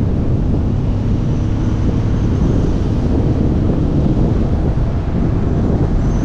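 Steady wind rush buffeting a helmet-mounted camera's microphone on a motorcycle moving at road speed. The motorcycle's engine and road noise run faintly underneath.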